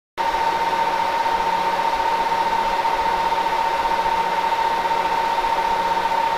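A steady machine-like drone with one high whine held over hiss, switching on abruptly and cutting off sharply; underneath, a faint low hum pulses on and off about once a second.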